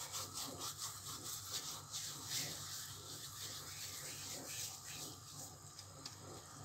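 Dried thyme being crumbled between two palms rubbed briskly together: a quick run of dry, rasping rubbing strokes that fade out in the last second or so.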